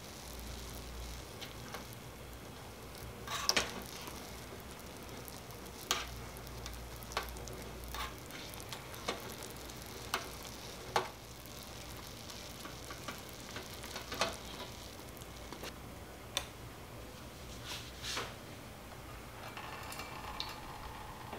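Small perforated metal skimmer stirring noodles in a tiny aluminium saucepan of boiling water: sharp metal-on-metal clicks at irregular intervals, roughly one a second, over a steady faint hiss of the simmering water.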